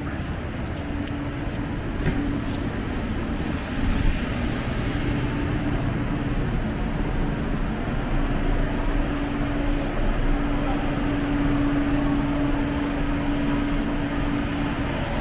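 City street noise of vehicles running, with a steady low hum that drops in and out.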